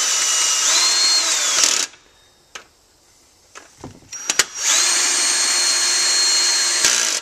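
Power drill with a socket extension running main bearing cap bolts into a tractor's engine block. The motor whines in two runs, the first near the start and the second about halfway through, each ending abruptly. There are a few light clicks in the pause between them.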